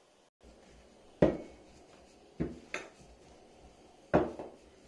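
Four sharp knocks and clinks of kitchenware, each with a short ring, the loudest about a second in and near the end.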